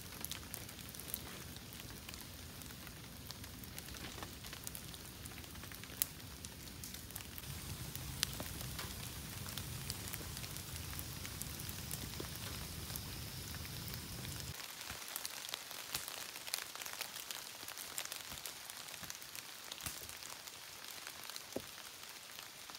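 Large bonfire of thin dry branches burning, crackling with many sharp pops over a steady hiss. A low rumble under it cuts off suddenly about two-thirds of the way in.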